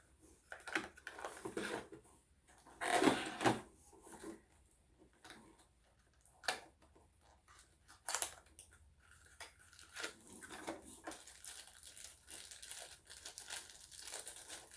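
Pin packaging being opened by hand: a small blind box and the bag inside it crinkled and torn open, with irregular rustling and crackles, loudest about three seconds in.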